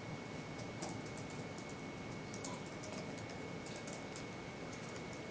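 Faint, irregular clicking of laptop keys being typed, over steady room noise with a thin, steady high-pitched whine.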